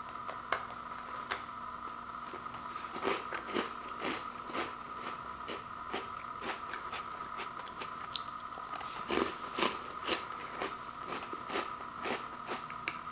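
A person biting and chewing a crunchy chocolate sandwich creme cookie, in irregular crunches that come thickest about three seconds in and again about nine seconds in. A steady faint hum runs underneath.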